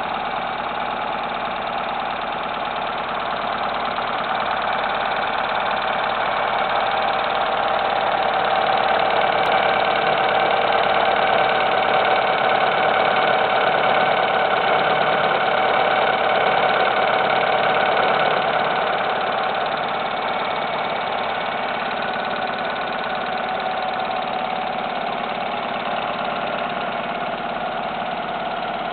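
Alfa Romeo 166 2.0 16-valve Twin Spark four-cylinder engine idling steadily, running just after its first start following a cylinder head overhaul. It grows somewhat louder for a stretch in the middle, then settles back.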